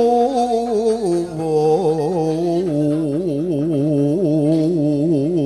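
A man singing a long-held Javanese vocal chant into a microphone, with a strong, rapid wavering of pitch on each held note. He holds a higher note, drops to a lower one about a second in, and sustains it.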